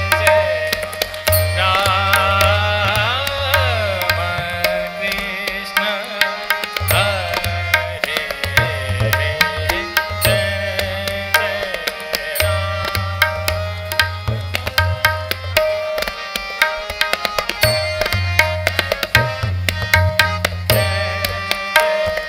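Tabla played in fast, dense strokes, the bayan's deep bass strokes booming in and out, over a steady, repeating harmonium lehra melody.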